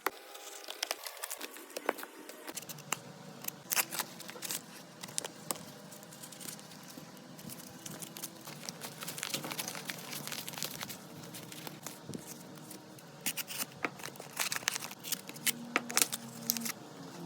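Repair handling noises on a cracked Apple Watch screen: irregular clicks, crackling and scraping as the broken glass and adhesive are worked on with small tools.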